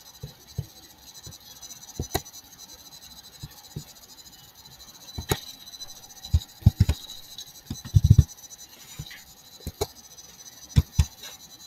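Scattered computer mouse clicks and keyboard keystrokes, a handful of sharp single clicks spread irregularly, with a few short dull low thumps in the middle.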